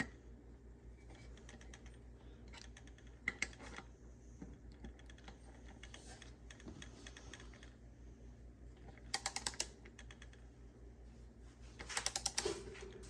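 Click-type torque wrench ratcheting on the crankset's spindle bolt, tightening it to 40 newton meters: a few single clicks, then a quick run of about five clicks and another cluster of clicks near the end, over a faint steady low hum.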